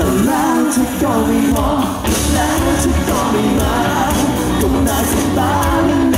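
Live pop-rock band playing: a man singing lead with a second singer, over electric guitar and drums.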